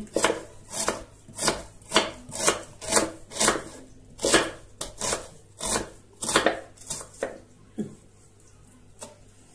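Kitchen knife slicing an onion on a wooden cutting board, the blade knocking on the board about twice a second; the cuts stop near the end.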